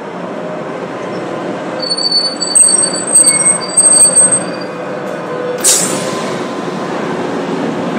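Tram running along its rails, heard from inside the car, its wheels squealing in high tones from about two seconds in to about four and a half seconds in. A short hiss follows near six seconds in.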